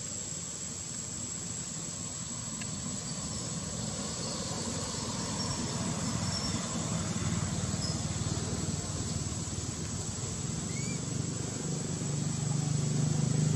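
Low motor hum, like a passing vehicle's engine, growing louder toward the end over steady outdoor background noise with a thin, steady high whine and a few faint chirps.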